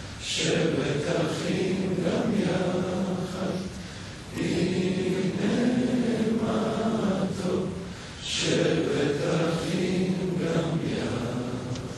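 A group of men singing a song together in long held phrases of about four seconds each, with brief pauses between them.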